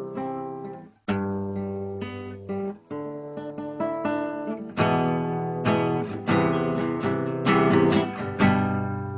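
Acoustic guitar strumming chords, with a short break about a second in. From about halfway the strums come faster and louder.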